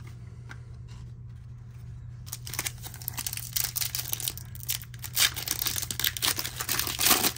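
Trading-card pack wrapper torn open and crinkled by hand, starting about two seconds in and loudest near the end.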